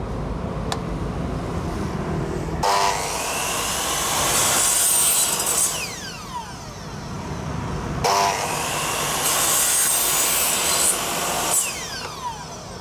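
Electric compound miter saw making two 45-degree cuts through a pair of nested PVC V-corner trim strips, one a few seconds after the other. Each time the motor starts, the blade bites through the plastic with a high rasping noise, and then the pitch falls as the blade spins down.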